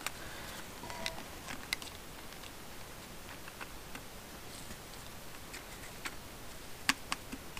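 Gloved hands seating a paper gasket on a two-stroke motorcycle engine's crankcase: faint, scattered light clicks and taps of the gasket and fingers against the metal, with one sharper click about seven seconds in.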